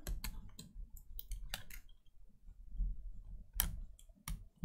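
Light clicks and taps of a thin tool working the small flex-cable connectors on a MacBook Air logic board as they are flipped open and unplugged, with a few sharper clicks near the end.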